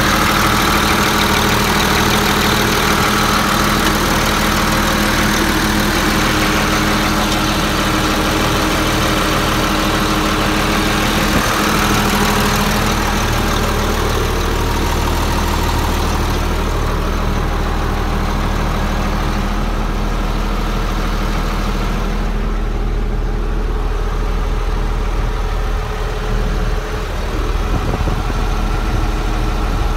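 John Deere 4450 tractor's six-cylinder turbocharged diesel idling steadily. It is heard first beside the engine and then from inside the cab, where it sounds more muffled from about halfway on.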